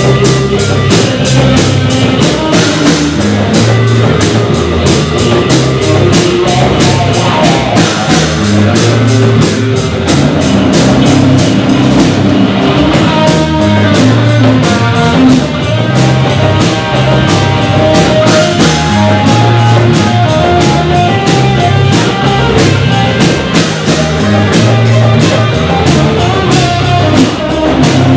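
Live rock band playing loud, amplified: a drum kit with steady, evenly spaced cymbal strokes over electric guitars.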